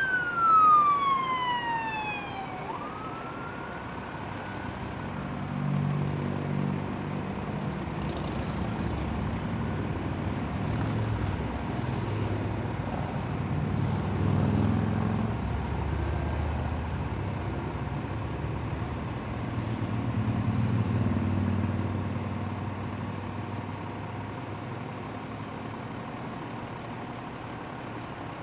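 A police siren winds down in a falling wail in the first few seconds and gives one short rise. Then the engines of a slow procession of police cars and motorcycles pass, the engine hum swelling three times as vehicles go by.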